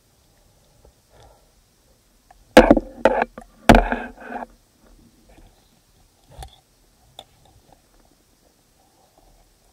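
Underwater handling noise from a diver working a speared asp and its stringer next to the camera: three sharp knocks close together a few seconds in, the last trailing into a short rough scrape, then a few faint clicks.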